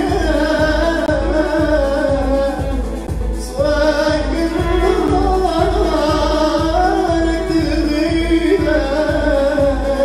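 Arabic song performed live: a man singing into a microphone over a keyboard playing a steady beat of about two pulses a second, with an electric violin bowing alongside.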